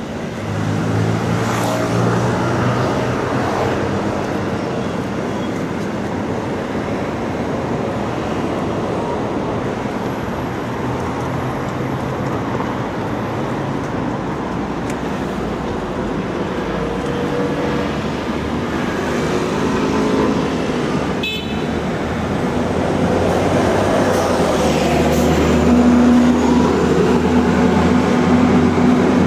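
Road traffic: motor vehicle engines running and passing, with engine pitch rising and falling over steady road noise, and a single sharp click about two-thirds of the way through.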